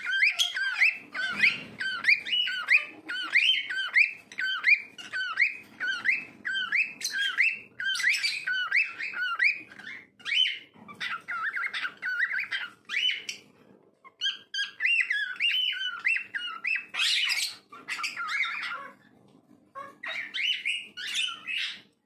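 Cockatiel whistling a long run of short repeated notes, two or three a second, each one swooping in pitch, with a few short breaks before it starts up again.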